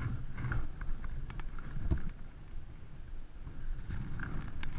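Wind buffeting the microphone in an uneven low rumble, with a few short, sharp clicks and knocks as the fishing rod and spinning reel are handled.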